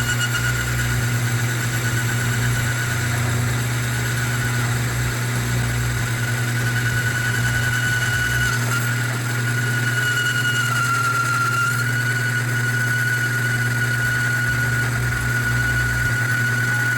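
Metal lathe running while a bicycle fork's steel steerer tube is turned, with a constant motor hum and a steady whine that dips slightly in pitch about ten seconds in.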